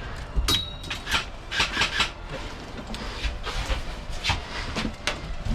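Irregular rubbing and scraping rustles from a player's gear and clothing as he moves.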